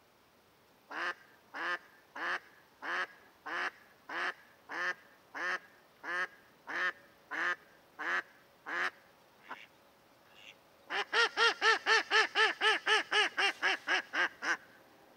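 A live decoy hen duck quacking: a slow, even series of about thirteen quacks, then after a short pause a faster, louder run of quacks.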